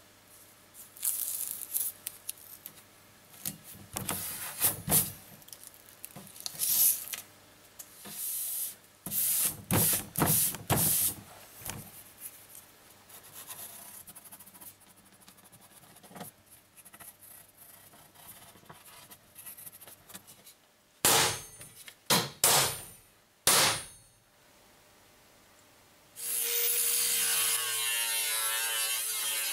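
Workshop handling: double-sided tape unrolled and a paper template pressed and rubbed onto a steel sheet in irregular bursts, then a quieter stretch of pencil tracing and a few sharp handling noises. Near the end an angle grinder starts up and runs steadily, cutting into the steel sheet.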